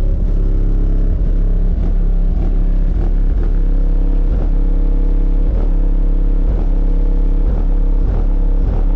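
Loud, bass-heavy music with a steady beat, played through a car's aftermarket audio system.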